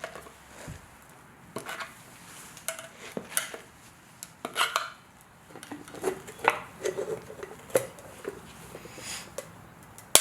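Irregular light clinks, taps and scrapes of hard metal objects being handled, with one sharp knock at the very end.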